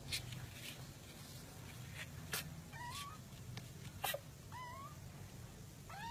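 A cat meowing briefly two or three times, each call short and bending up then down in pitch, with several sharp clicks or knocks between the calls over a low steady hum.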